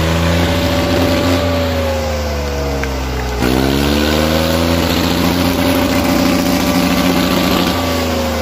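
Swaraj 855 FE tractor's three-cylinder diesel engine revved hard at high throttle while hauling a harrow through the soil. Its pitch sags, then climbs again about three seconds in and eases slightly near the end.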